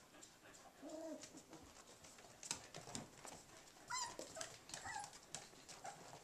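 Four-week-old puppies playing, giving a few faint whimpers, with a higher squeak about four seconds in, over light scratching and tapping of paws on a woven ramp toy.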